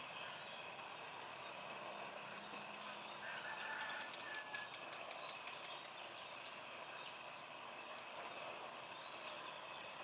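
Faint outdoor ambience with a steady hiss and distant bird calls: a faint high chirping repeats throughout, a short pitched call comes about three seconds in, and a quick run of clicks follows about a second later.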